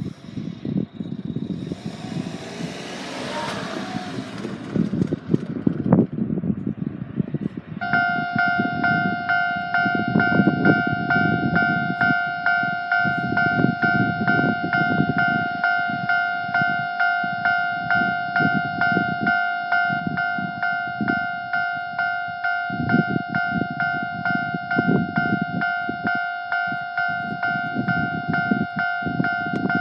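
A Japanese level-crossing warning bell starts ringing about eight seconds in, an evenly repeating electronic ding that carries on to the end. Beneath it is a low rumble of passing vehicles, with something rushing past in the first few seconds.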